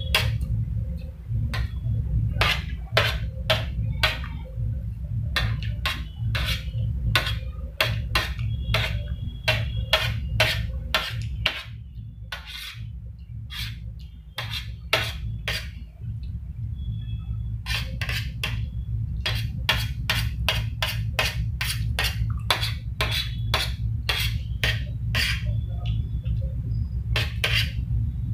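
Metal spoon scraping and clinking against a stainless steel plate while scooping fried rice: a long run of short, sharp clicks and scrapes that thins out briefly about halfway, over a steady low hum.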